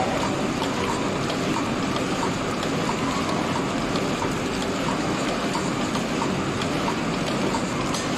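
Oil or paste sachet packing machine running steadily, its rollers drawing the sachet film through, with a continuous mechanical rattle and faint regular ticking.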